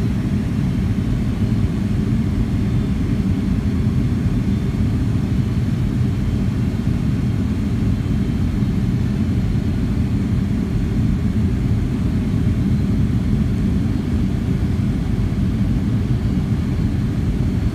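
Boeing 757-200 airliner's jet engines and airflow heard inside the cabin over the wing: a steady low rumble on approach, unchanging throughout.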